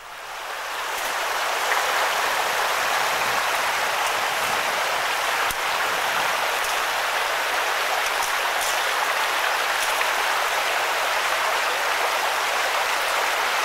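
Steady rushing of a mountain stream's flowing water, fading in over the first second or two and then holding even.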